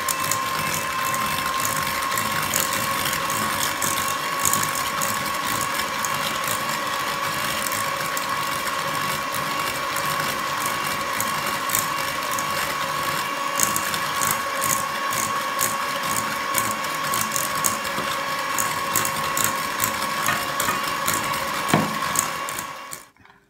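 Electric hand mixer running steadily with a motor whine, its twin beaters working a stainless steel bowl of creamed butter and sugar as eggs are beaten in. Light clicks come and go through the middle stretch, and the mixer switches off abruptly just before the end.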